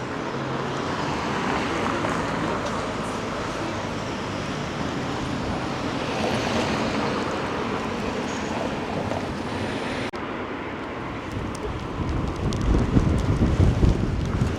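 Traffic passing on a rain-wet street, the tyre hiss swelling and fading. From about twelve seconds in, wind buffets the microphone in low gusts.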